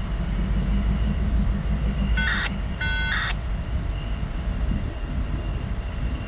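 Diesel locomotive idling with a steady low rumble. About two seconds in, two short chord-like horn blasts sound, the second a little longer than the first.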